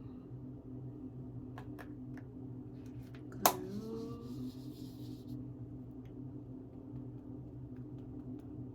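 Steady low hum of a small room, with a few faint handling ticks and one sharp click about three and a half seconds in.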